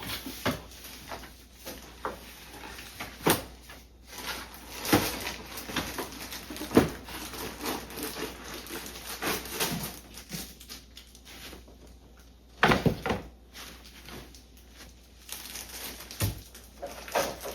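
Cardboard box and its packaging being opened and handled: irregular rustles, crinkles and small knocks, with a cluster of louder clicks about two-thirds of the way through.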